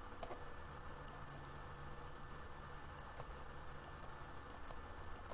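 Computer mouse left button clicking: about a dozen faint, sharp clicks at irregular intervals, several in quick pairs, over a faint steady hum.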